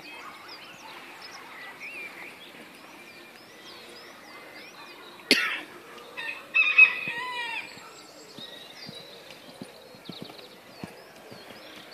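Small birds chirping, with a loud animal call about halfway through: a sharp first part, then a wavering call of about a second.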